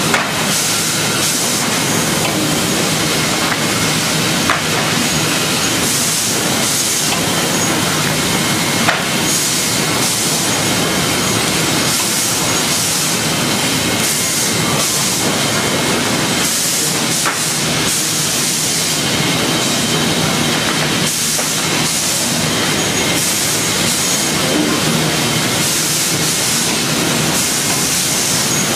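Chip-N-Saw sawmill line running steadily: a loud, continuous hiss and clatter from the machinery and chain conveyors carrying sawn boards, with a few sharp knocks.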